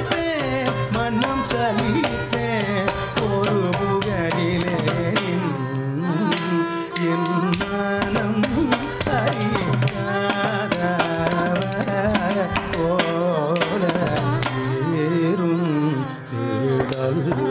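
Carnatic music: a varnam in Charukesi raga and Adi tala, with gliding melodic lines from voice and violin over mridangam strokes and a steady drone.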